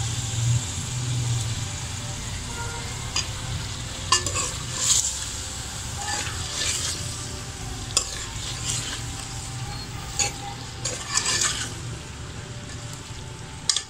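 Steel ladle stirring potato cubes into sizzling masala in an aluminium pressure cooker, with scrapes and knocks of the ladle against the pot every second or two over a steady frying sizzle.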